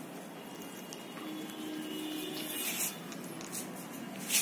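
Pug puppies moving about on a cloth over a concrete floor: faint rustling with a few short, scratchy scuffs, the loudest just before the end.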